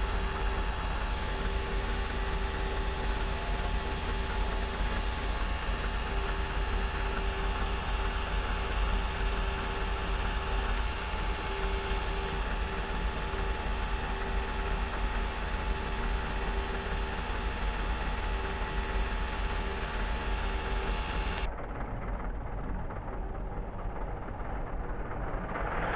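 Steady mechanical drone with a constant high whine over it, which turns suddenly muffled near the end.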